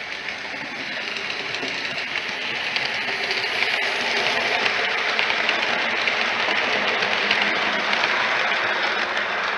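Model steam locomotive and its coaches running along the track: a continuous whirring of the motor and wheels on the rails, growing louder over the first few seconds as the train comes past, then holding steady.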